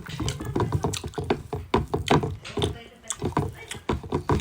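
Close-up eating sounds: wet chewing and smacking in quick, irregular clicks several times a second.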